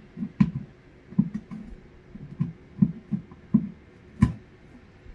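A series of irregular soft thumps, about a dozen in five seconds, a few with a sharp click on top.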